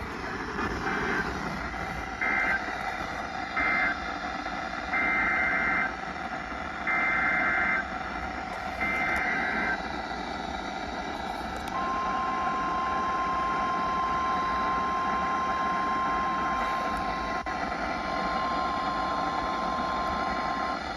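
Emergency Alert System signalling on a weather radio, over steady radio hiss. First come three short screechy data bursts, the end-of-message code for the previous alert. Then come three longer data bursts of about a second each, the SAME header for the next alert, and about 12 seconds in a steady single-pitch warning alarm tone starts and holds for about nine seconds.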